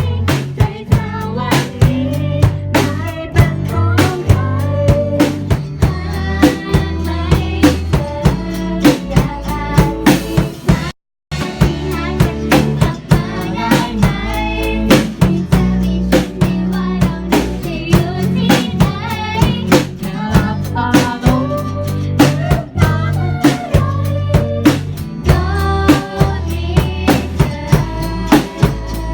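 Thai pop dance track played loud, with a steady drum-kit beat, bass and a sung melody. It drops out completely for a split second about eleven seconds in.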